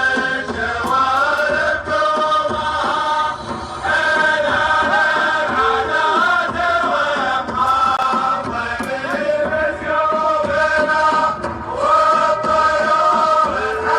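A group of voices chanting a slow Arabic song in unison, in long drawn-out phrases, the kind of tribal chant sung at Gulf weddings.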